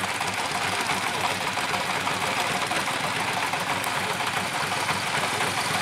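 Two-wheel walking tractor's engine running steadily and fast as it drives across a dry field on steel cage wheels.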